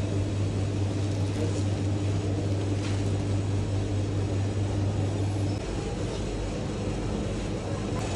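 Steady low mechanical hum that shifts to a lower drone about five and a half seconds in.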